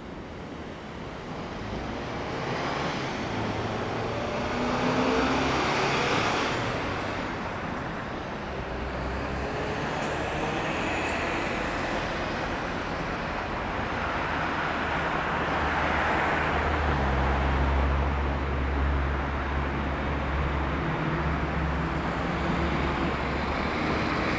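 Road traffic: vehicles passing with engine and tyre noise, swelling about five seconds in and again about sixteen seconds in, the second time with a deep engine rumble from a heavy vehicle.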